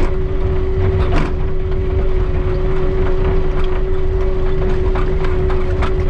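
Loader tractor's engine running steadily under load while pushing snow, heard from inside the cab, with a steady drone over the rumble. Scattered clicks and rattles, with a sharper knock about a second in.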